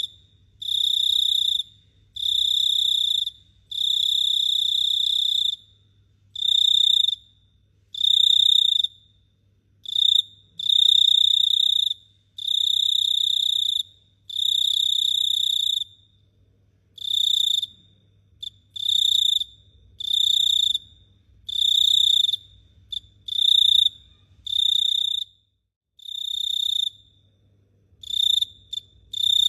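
Cricket singing at close range: a high, pure trill in bursts of about half a second to a second and a half, one after another with short gaps between them. A faint low hum sits underneath.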